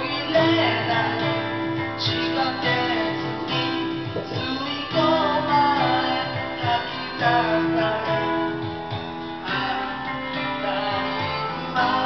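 Karaoke song playing through the room's speakers: an instrumental backing track with a singing voice carrying the melody over it.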